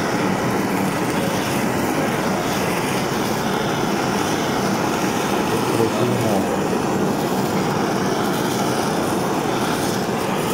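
Handheld kitchen blowtorch flame running steadily, searing Wagyu beef nigiri (aburi style).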